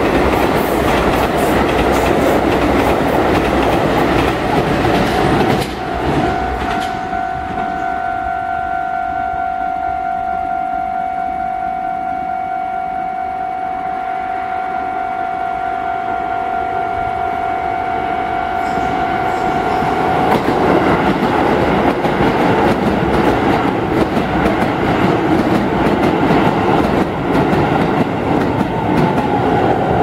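A Keisei Main Line electric train runs through the level crossing for the first six seconds or so, with a loud rumble and clickety-clack of wheels on the rail joints. The crossing's electronic warning bell then rings steadily on its own. From about twenty seconds in, the rumble of another approaching train builds again over the bell.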